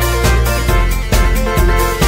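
Background music with a steady beat of about two beats a second and a melody over it.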